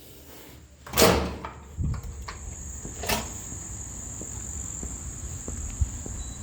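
Two sharp bangs about two seconds apart, the first the loudest. After the first, a steady high-pitched whine sets in over a low rumble of wind.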